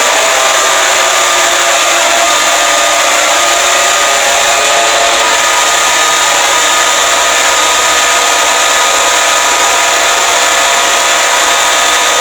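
Emergency Alert System alarm audio: loud, steady static with faint held tones around 1 kHz underneath, unbroken and at an even level.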